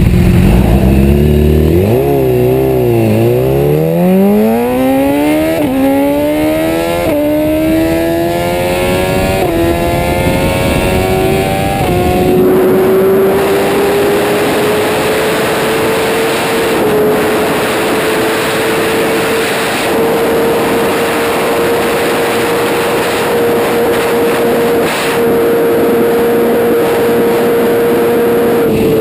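BMW S1000RR's inline-four engine accelerating hard under full throttle, its note climbing and dropping sharply at each of several quick upshifts over the first twelve seconds. It then holds a high, steady, slowly rising note in top gear with a heavy rush of wind at high speed, easing slightly at the very end.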